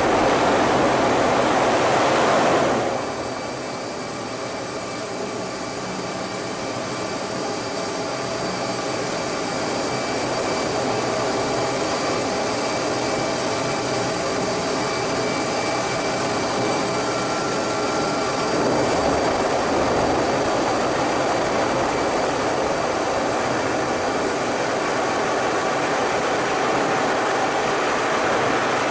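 Cockpit noise of an F-18 Hornet jet fighter in display flight: a steady rush of airflow and jet engine noise with faint steady whines. It is loudest for the first three seconds, while vapour streams off the wings in a hard manoeuvre, then drops and slowly builds again.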